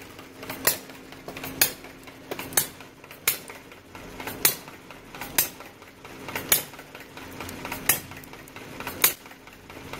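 Homemade miniature hit-and-miss engine running a can crusher: sharp metallic clicks about once a second over a steady low hum.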